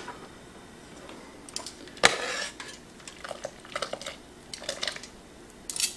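Metal kitchen tongs clanking against a stainless steel stock pot while lifting cooked pasta out of it: one sharp, louder clank about two seconds in, then lighter clicks and taps.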